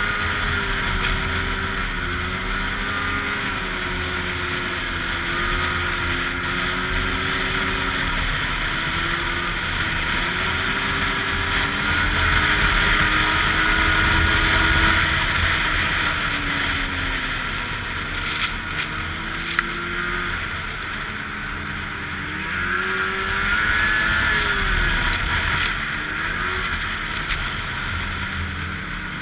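Snowmobile engine running at trail speed, its pitch rising and falling with the throttle, with wind rushing over the helmet-mounted camera.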